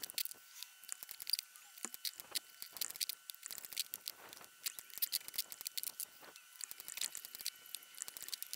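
Rapid, irregular light clicks and taps as cedar boxes are put together: wood pieces handled and set down and a pneumatic brad nailer firing, with a faint steady high tone underneath.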